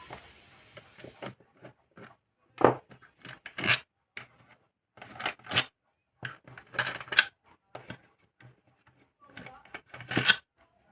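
Irregular clicks, clinks and knocks of small hard parts being handled as a home-theatre speaker box is opened up.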